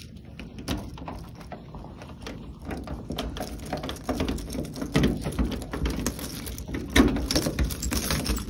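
A bunch of keys jangling and clicking as a key is fitted and turned in a vending machine's door lock, with handling rattles and a couple of heavier knocks about five and seven seconds in.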